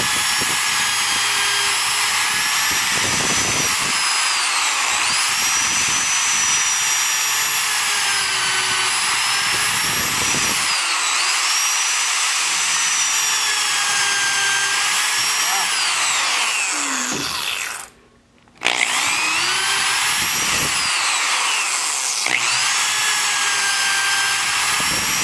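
Electric drill boring into wooden boards: a steady motor whine whose pitch sags and recovers again and again as the bit bites under load. It stops for about a second some 18 seconds in, then starts up again.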